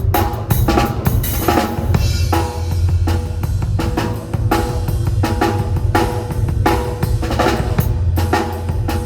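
Drum kit played in a busy, fast groove: snare and rimshot hits, bass drum and cymbals, with a cymbal crash about one and a half seconds in. A sustained low tone runs underneath the drums.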